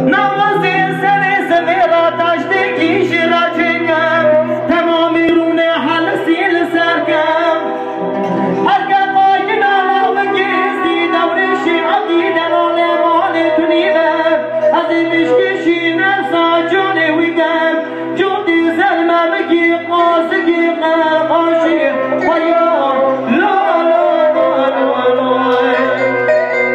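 A man singing live through a microphone and PA, his voice wavering and ornamented, over two electronic keyboards (Korg and Roland) and a dhol drum.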